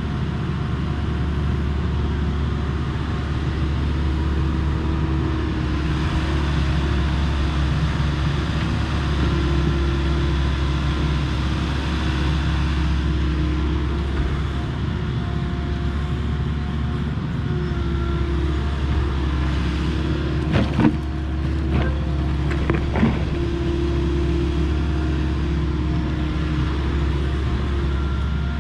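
Volvo ECR58D mini excavator's diesel engine running steadily while it digs, its tones shifting slightly as the arm and bucket work. A few sharp knocks come about two-thirds of the way through.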